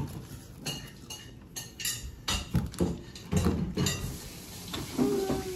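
Tableware knocking and clinking during a meal eaten by hand, heard as a string of short, sharp clicks and taps on bowls and plates, with a few heavier thumps in the middle.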